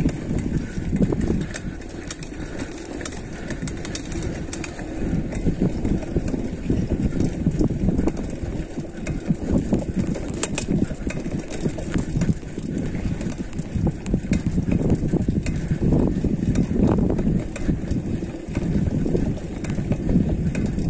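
Mountain bike rolling down a dirt trail: a constant, uneven low rumble of wind buffeting the microphone and tyres on dirt, with scattered sharp clicks and rattles from the bike.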